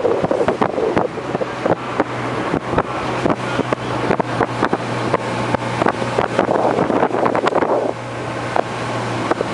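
Motorboat under way: its engine runs steadily under a loud rush of water and wind buffeting the microphone, with frequent short knocks as the hull meets the waves.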